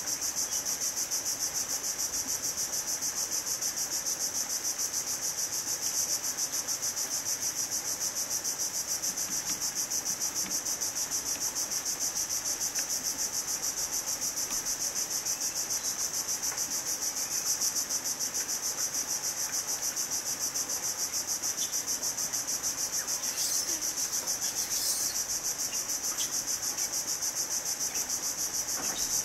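Steady, high-pitched chorus of insects in the mangrove, a fast even pulsing that never lets up. A couple of brief, higher chirps come through a little after the middle.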